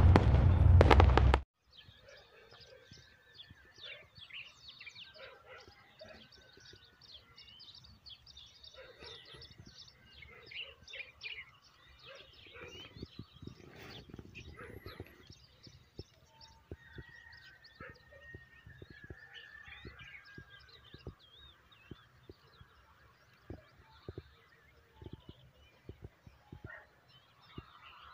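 Intro music cuts off abruptly about a second and a half in. Then faint outdoor birdsong follows: many short chirps and calls from several birds, with scattered light clicks.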